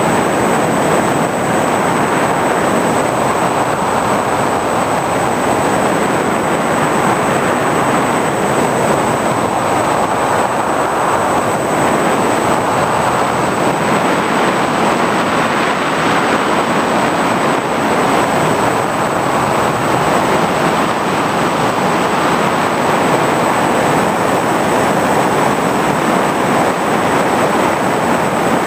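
FPV drone's motors and propellers running steadily in flight, a constant rushing whir mixed with airflow, picked up by the drone's own onboard camera, with a thin high whine over it.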